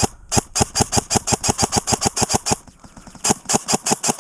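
Airsoft gun firing rapid shots, about eight a second, in two long strings with a pause of about half a second between them.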